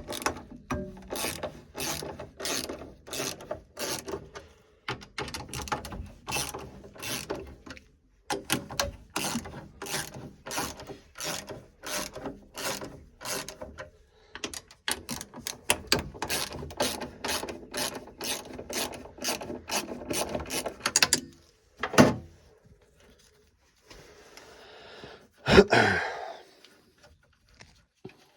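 Ratchet spanner clicking in quick runs, about three clicks a second, as bolts on a gas boiler's burner are undone, with short pauses between runs. It ends with a sharp knock, then a louder metallic clatter near the end.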